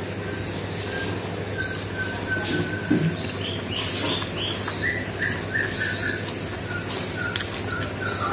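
Close-up eating sounds: chewing tahu bakso and rice, with a few sharp clicks, over a steady low hum. Birds chirp in the background in short repeated notes, more often from about five seconds in.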